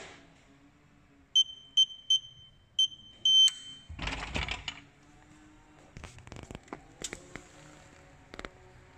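Electronic combination keypad lock on a gun cabinet beeping four times as digits are keyed in, then one longer confirmation beep. A rattle of the lock follows as the knob is turned, then a few clicks and knocks as the cabinet door is opened.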